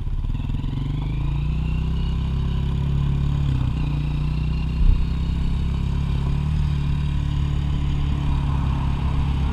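Dirt bike engine pulling away, its pitch climbing over the first couple of seconds and then running steadily. A single sharp thump about five seconds in.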